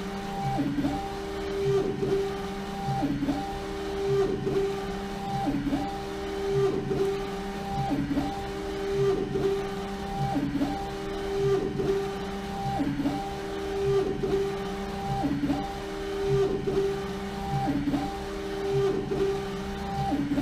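LogoJet UVx60XL UV printer running a print pass on a bottle turned by its rotary jig, the print-head carriage shuttling back and forth. Its drive makes a steady motor whine that breaks and swells again at each reversal, about once every second and a bit, as the job runs past halfway.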